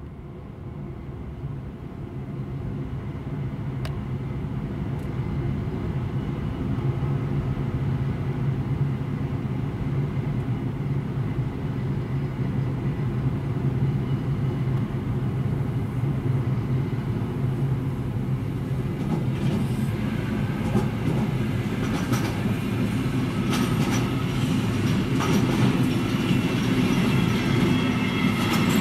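Electric locomotive hauling a container freight train, its steady low hum growing louder as it approaches. Over roughly the last ten seconds the container wagons roll past close by, with repeated knocks from the wheels on the rails.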